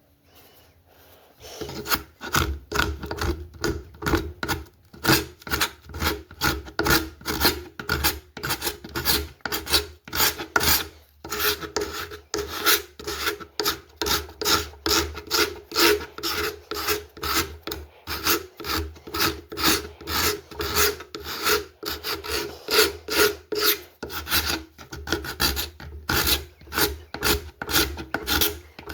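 Paint scraper with a burred edge scraping dried hot glue off an oak lampshade blank in quick repeated strokes, about two a second, starting about a second and a half in, over a steady low hum.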